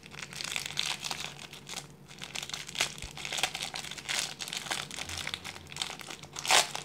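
Thin clear plastic wrapping crinkling and crackling irregularly as hands struggle to work it off a tightly wrapped miniature plastic dome cover, with a louder crinkle near the end.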